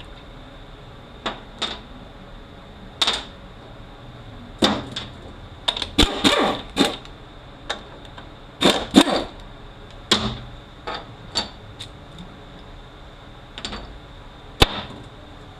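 Irregular metallic clanks, clicks and scrapes of hand tools and loose parts being handled while a 1356 transfer case is taken apart, some knocks ringing briefly.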